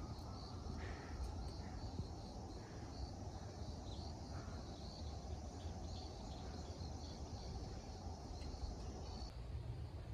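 Outdoor ambience: a steady low rumble with faint insects chirping high up, a short chirp about twice a second.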